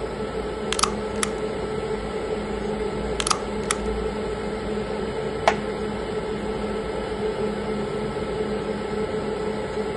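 Steady hum and fan-like hiss of equipment in a small room, with five light clicks: a pair about a second in, another pair around three and a half seconds in, and one more near five and a half seconds.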